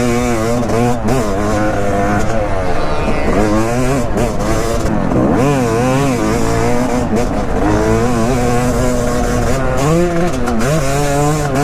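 2023 Yamaha YZ250's single-cylinder two-stroke engine, revving hard and backing off over and over, its pitch rising and falling as the bike accelerates, shifts and rolls off around a motocross track.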